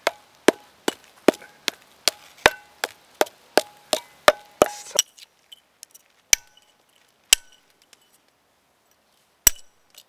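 Hammer striking a chisel held against a freshly cast bronze cannon, chipping off the remaining mould and casting burrs. A quick run of sharp metallic strikes, about three a second, each with a short ring, then three slower strikes.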